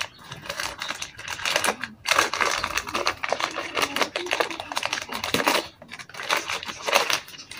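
Gift-wrapping paper being torn and crinkled by hand as a present is unwrapped: a dense run of quick rustles and crackles, with a few short pauses.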